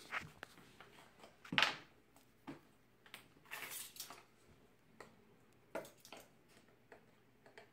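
Scattered small knocks and clinks of a spice jar and measuring utensils being handled over a mixing bowl on a kitchen counter. There is a louder knock about a second and a half in and a brief scratchy rustle around four seconds in.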